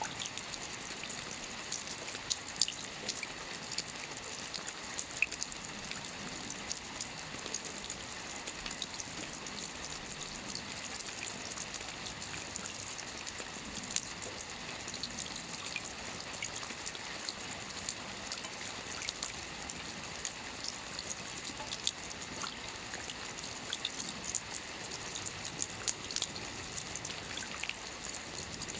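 Steady rain falling, a continuous hiss with many individual drops ticking sharply on a surface.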